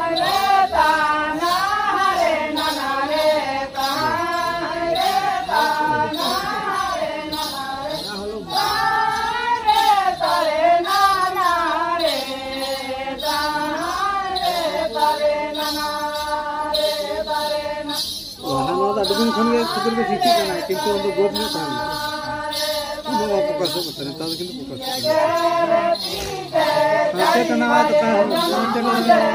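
Santali Karam dance song: singing voices with a wavering, ornamented melody over a steady rhythmic beat of drum strokes and jingling bells.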